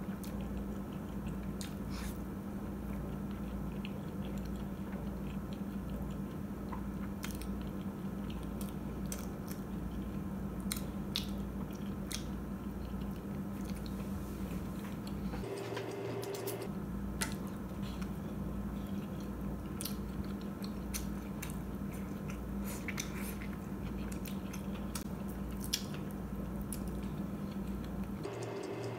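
Close-miked chewing and biting of soft oden pieces (fish cakes and tofu), with many short wet mouth clicks and squishes, over a steady low hum.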